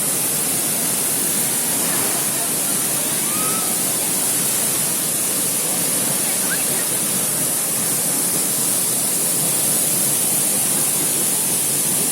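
Waterfall rushing: a steady, even noise of falling water that holds unchanged throughout.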